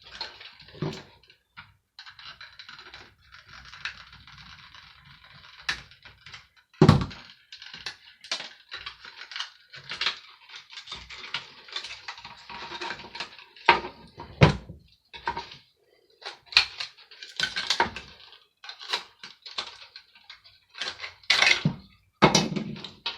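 Plastic and metal parts of a hand dryer being handled and pulled apart: irregular clicks, rattles and scraping. There are two louder knocks, about seven and fourteen seconds in.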